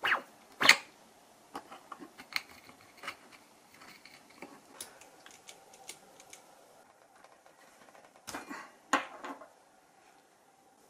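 Small metal clicks and ticks from handling and unscrewing a small brushless motor (Emax RS2306) with a hex screwdriver and pulling it apart, a brand-new motor that has a fault. Two sharp clicks open it, light scattered ticks follow, and a short clatter of parts comes about eight seconds in.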